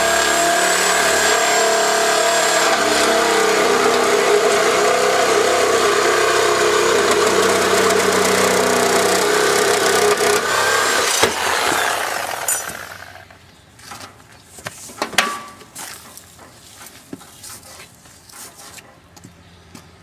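Power tool running steadily under load, as when cutting into metal, then winding down about twelve seconds in. Scattered light clanks and rattles of metal parts follow.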